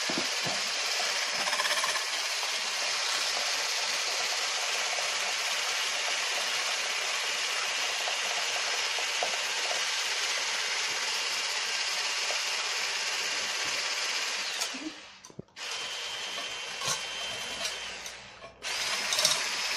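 Electric mixer running steadily, whipping eggs with sugar and butter into a foam. It stops briefly about fifteen seconds in and again near the end, starting up each time.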